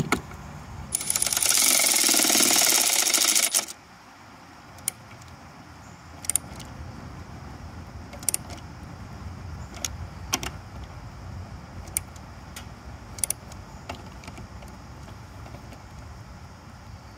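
A ratchet wrench clicking rapidly for nearly three seconds as a fitting on the pump's hose hookup is tightened, then a few scattered single sharp clicks and knocks.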